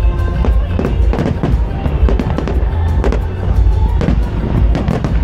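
Aerial firework shells bursting in an irregular string of sharp bangs, a few a second, with a deep rumble and music playing along underneath.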